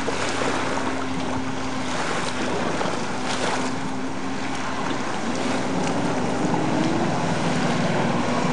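Yamaha Wave Blaster jet ski's two-stroke engine running hard. Its pitch shifts about a third of the way in and rises near the end, over a steady hiss of spray and wind.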